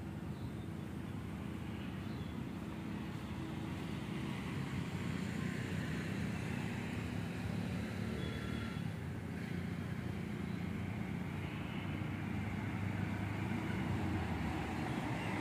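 A car driving on the road at a distance, its engine hum and tyre noise growing gradually louder.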